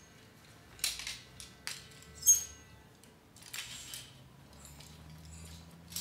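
Clothes hangers clinking and scraping on a clothing rack as garments are pulled off it: several sharp clinks in the first half, the loudest about two seconds in, then fainter clatter.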